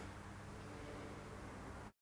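Faint room tone: a steady hiss with a low hum, cutting off abruptly to dead silence near the end.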